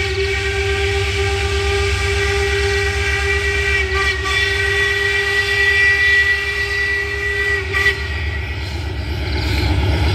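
Steam locomotive whistle sounding one long steady blast that stops about eight seconds in, after which the running noise of the approaching train grows louder.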